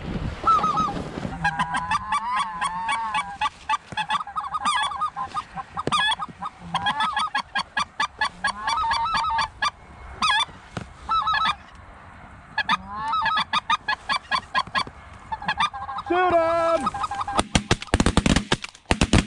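Geese honking and clucking in rapid, high-pitched calls as a flock works over the decoys. Near the end comes a quick string of muffled shots from a suppressed 12-gauge shotgun.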